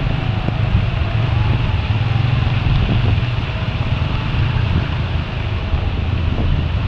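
Steady sound of riding a motorcycle through heavy rain: a low engine hum under a continuous hiss of wind, rain and wet road. A faint wavering whine runs through it.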